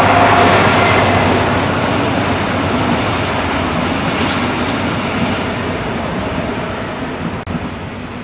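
Class 218 diesel-hydraulic locomotive and its double-deck coaches passing: the locomotive's engine tone dies away within the first second as it goes by, leaving the steady rolling and rail noise of the coaches, which slowly fades as the train moves off.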